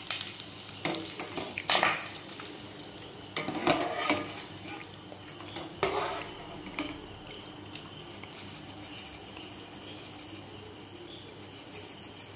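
Curry leaves frying in hot oil in a pot, sizzling, while a wire spider strainer scrapes and clinks against the pot as the leaves are scooped out. The clinks come several times in the first half; after that only a quieter, steady sizzle remains.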